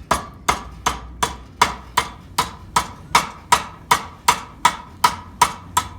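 Hand hammer striking hot steel on an anvil in a steady rhythm, about two and a half blows a second, each with a short metallic ring: forging a loop for a branding-iron handle.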